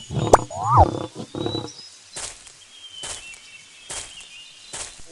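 Tiger growling during the first second and a half, then a quieter stretch with a few short, sharp sounds and faint high tones.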